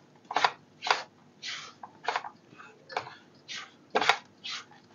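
Silicone spatula stirring dry, crumbly roasted wheat-flour panjiri in a nonstick kadhai: short swishing scrapes, about two a second.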